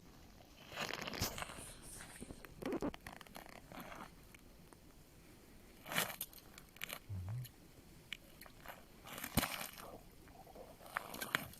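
Faint, scattered crunches and rustles a few seconds apart, the loudest about six seconds and again about nine seconds in.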